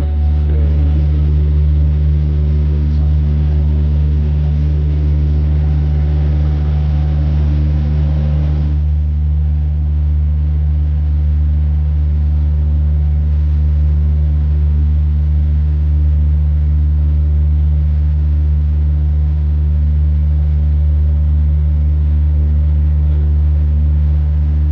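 Boat engine droning steadily with a deep, even hum. A rushing hiss over it drops away about nine seconds in.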